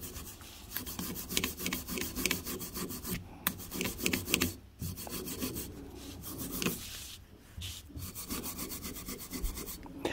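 A small brass wire brush scrubbed back and forth in quick scratchy strokes over a metal lathe slide part, with a few brief pauses. It is cleaning dirt off tiny screws on the part.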